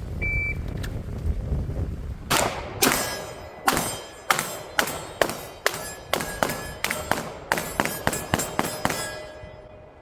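A shot timer beeps once. About two seconds later a pistol fires a rapid string of around fifteen shots, the shots coming faster toward the end, some followed by a faint metallic ring.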